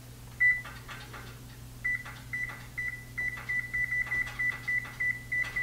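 Electronic oven control panel beeping at each key press as the bake temperature is set and stepped up: one short high beep, then a quick run of identical beeps about three or four a second, each with a light click of the key.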